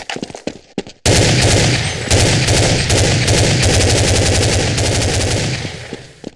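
A long, loud fart starting about a second in: a fast rattling run of pops over a low buzz, lasting about five seconds and fading away near the end. A few short, separate pops come before it.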